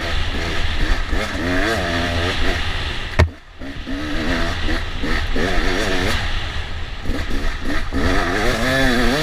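Enduro dirt bike engine revving up and down as it is ridden over a rocky trail, heard from a helmet-mounted camera with wind on the microphone. About three seconds in there is a sharp knock, and the engine sound drops briefly before picking up again.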